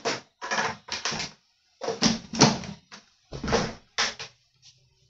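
A string of plastic clacks and knocks from an Imusa air fryer's body and basket being handled and pushed into place, some with a dull thud.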